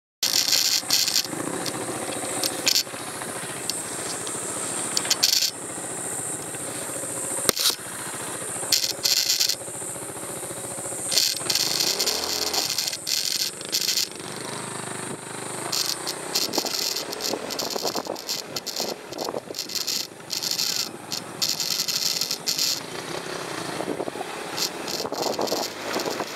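150 cc motorcycle being ridden along a loose gravel road: engine running under the crunch of tyres on stones, with an uneven rush of noise that rises and falls. Near the end the tyres splash through a puddle.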